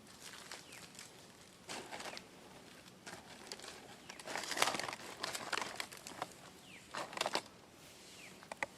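Irregular bursts of rustling and crinkling, loudest a little past the middle, with a few sharp clicks near the end and some faint, short falling chirps.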